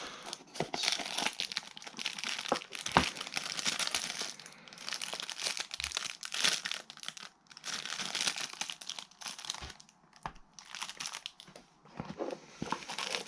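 Packaging crinkling and rustling in irregular spurts, with scattered sharp clicks and brief pauses, as a small drone is unwrapped from its box.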